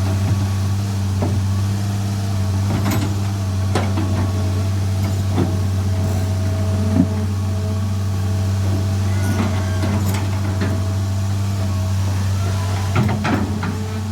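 Excavator's diesel engine idling steadily, with scattered sharp metal knocks and clanks from work on the steel track chain.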